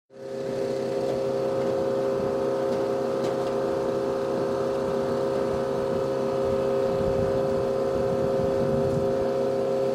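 Steady machinery noise on an airfield ramp, from an aircraft or ground-support engine: an even drone with two held tones over a low rumble, fading in at the very start.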